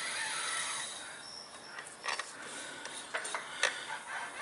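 Briggs & Stratton V-twin engine being turned over slowly by hand, with faint metallic clicks and light rattling from the engine, including a few sharp clicks about two and three seconds in.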